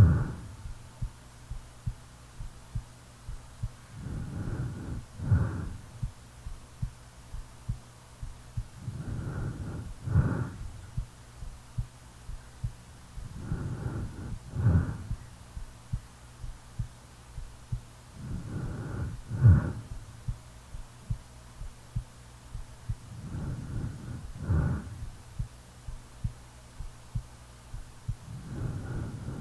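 A sleeping person's heartbeat thumping steadily about once a second, under snoring breaths that come about every five seconds. Each snore comes in two parts, the second louder, and a faint steady low hum runs underneath.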